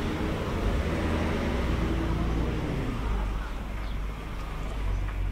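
Motor vehicle engine running close by with a low rumble, its engine hum fading after about three seconds while the rumble goes on.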